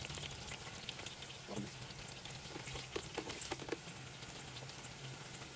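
French fries deep-frying in hot oil in the baskets of an electric deep fryer: a steady fizzing hiss with scattered small crackles and pops.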